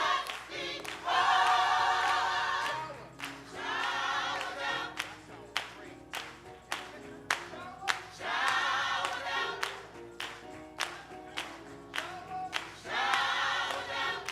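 Gospel choir singing in swelling held chords, phrase by phrase, with steady hand claps on the beat about twice a second from about a third of the way in.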